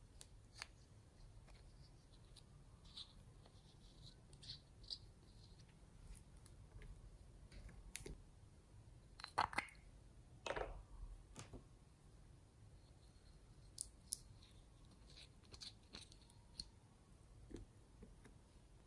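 Faint, sparse clicks and scrapes of a thin plastic spatula working orange gel out of a small plastic pot, with a few louder clicks and scrapes about nine to eleven seconds in.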